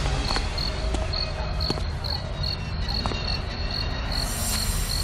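Cricket chirping in a steady pulse, a little over two chirps a second, over a low steady rumble.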